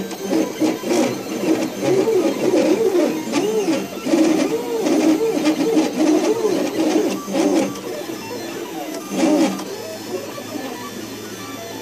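MakerBot Replicator Mini 3D printer's stepper motors whining as the print head moves, the pitch sweeping up and down in quick repeated arcs as it traces a honeycomb pattern. The sweeps quieten over the last few seconds, with one more strong sweep shortly before.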